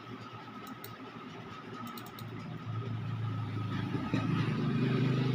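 A motor vehicle's engine running, its low hum growing louder over the last couple of seconds.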